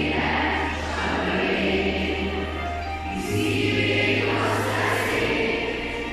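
A group of children singing together over an instrumental accompaniment with a steady bass line that changes note every second or two.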